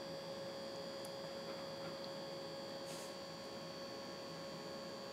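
A steady electrical hum made of several constant tones, with a couple of faint soft clicks about one and three seconds in.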